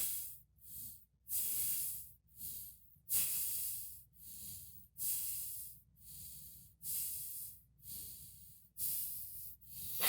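A person breathing hard in and out through the nose: short noisy breaths, roughly one every half second to second, alternating stronger and weaker, like six in-and-out pairs.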